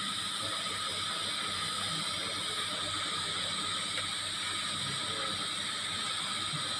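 TIG welding arc burning steadily on thin stainless steel pipe at about 60 amps with argon shielding gas, giving an even hiss.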